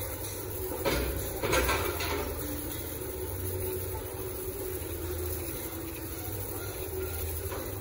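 Steady low mechanical hum, with two short, louder noises about a second and a second and a half in.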